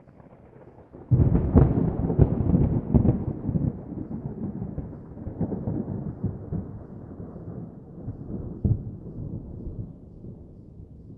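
A thunderclap: a faint low rumble breaks into a sudden loud crack about a second in, then rolls on as a low, crackling rumble that slowly fades.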